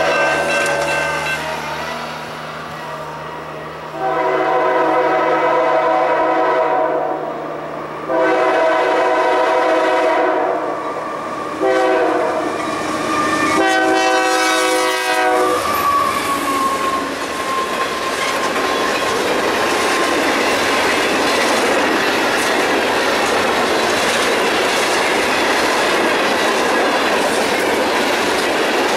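Freight locomotive horn sounding the grade-crossing signal: two long blasts, a short one and a final blast that ends as the locomotive reaches the crossing. From then on, the steady rumble and clickety-clack of loaded covered hopper cars of a grain train rolling past.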